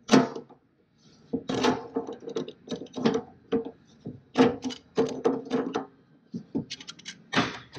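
Channel-lock pliers and a wrench gripping and turning a stubborn dipstick adapter nut on a Ford 7.3 diesel oil pan. They make an irregular series of metallic clicks and clanks, each with a short low ring.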